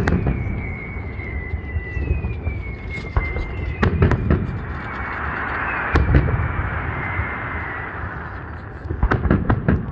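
Fireworks salute: shell bursts booming every few seconds, with falling whistles in the first seconds. A sizzling crackle runs from about five to eight seconds in, and a quick string of sharp pops comes near the end.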